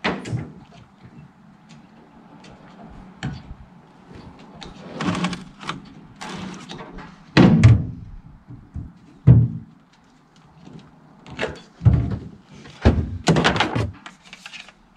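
Irregular thunks and knocks, a dozen or so with short scrapes between, the loudest a little past the middle: parts and tools being handled while a fuel transfer tank is installed.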